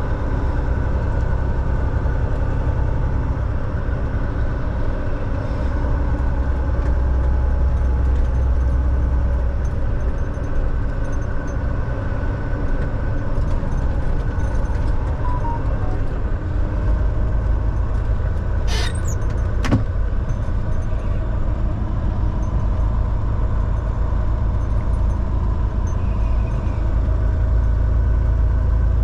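Volvo semi-truck driving on the road: a steady low diesel engine drone with road noise. The bottom of the drone swells for a few seconds early on, and there is a brief high hiss followed by a click about two-thirds of the way through.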